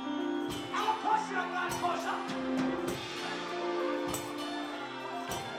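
Live gospel band playing: a drum kit keeps a steady beat, a stroke about every half second, under sustained chords.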